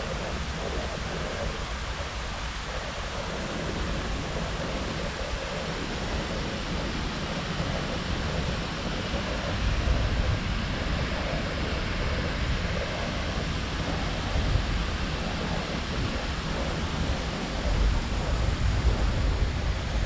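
Steady rush of water running down a large sloped, textured fountain wall into a shallow pool, with a few low rumbles of wind on the microphone.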